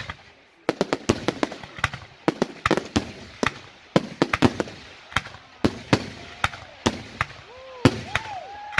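Fireworks going off in a rapid barrage: a string of sharp bangs from shells bursting overhead, several a second, after a brief lull just after the start. Voices rising and falling are heard near the end.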